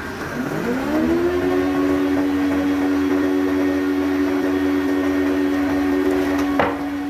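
Industrial thickness planer switched on, its motor and cutterhead spinning up with a rising whine, then running at speed with a steady hum. There is a single knock near the end.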